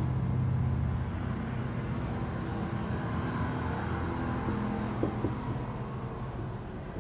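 A low steady hum that slowly fades, with a cricket chirping high up in an even, rapid pulse. There are two light taps about five seconds in.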